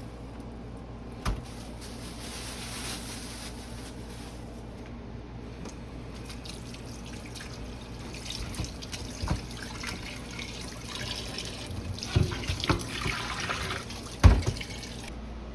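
Water running from a kitchen tap into a sink in two spells, with several knocks and clatters; the loudest knock comes near the end.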